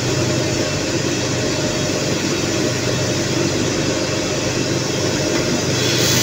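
Small drum coffee roaster running steadily: motor and fan hum under the noise of beans tumbling in the rotating drum. Near the end a brighter rushing hiss sets in as the roasted beans begin to pour out of the opened discharge door.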